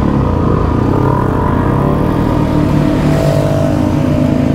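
Yamaha WR155's single-cylinder engine, fitted with an aftermarket Radamel F4 titanium exhaust, running under light throttle at low road speed, its note climbing slightly about three seconds in.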